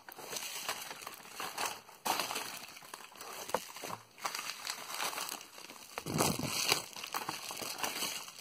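Bubble wrap and plastic packaging crinkling and rustling as they are handled, in uneven stretches with a louder handling burst about six seconds in.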